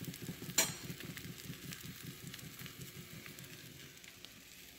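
Egg-battered bread sandwich sizzling quietly in a nonstick frying pan, with faint crackling, fading slowly. A single sharp click about half a second in.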